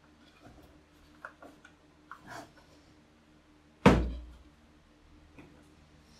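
A plywood lid and the plastic snap latches of a plastic bucket being handled: a few light clicks and rubs, then one loud sharp snap with a low thump about four seconds in as the lid is clamped down.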